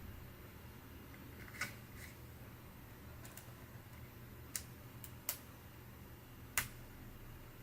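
Scattered sharp clicks and taps of small laptop parts and tools being handled while an HP ENVY 15 laptop is taken apart, about seven of them, with the loudest a little over a second and a half in and near the end. They sit over a faint low hum.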